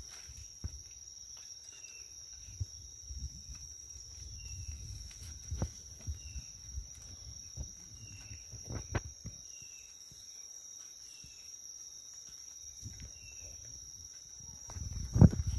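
A steady high-pitched insect drone with a short chirp repeating about every second and a half, over scattered snaps and rustles of dry leaves and twigs being handled. A louder burst of rustling and thumps comes near the end.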